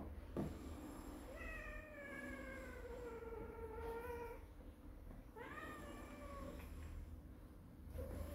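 Calico cat meowing in long, drawn-out calls while being handled. The first call lasts about three seconds and slowly falls in pitch; a shorter one that rises and then falls follows, and a third begins near the end. Two light knocks come right at the start.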